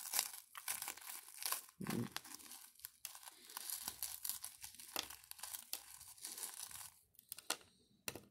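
A Java Chip Oreo cookie crushed in a fist: dry crackling and crumbling of the wafers, with many sharp little cracks, for about seven seconds, then a couple of last clicks. A dull thump about two seconds in.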